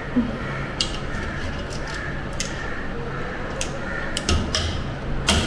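Metal mesh strainer knocking and scraping against the rim of a metal cooking pot as drained rice is tipped in, a string of sharp clicks and taps.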